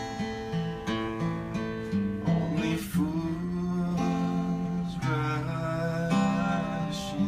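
A man singing while strumming chords on an acoustic guitar, holding long notes.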